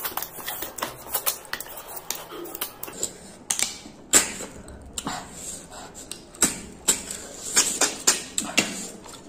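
Close-miked eating sounds: an irregular run of sharp wet clicks and smacks from chewing and sucking food, several a second, the loudest about four seconds in.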